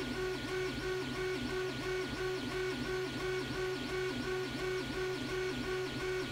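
Stepper motor of a Creality 3D printer whining as it shakes the bed back and forth, its pitch dipping briefly about three times a second as the bed reverses. The bed is shaking a pendulum at a slowly lowering frequency, just above the pendulum's resonance.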